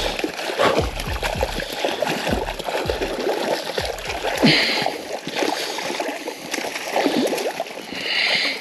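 Water splashing and sloshing in irregular bursts, with a few louder splashes, as a freshly landed fish is handled in the river shallows.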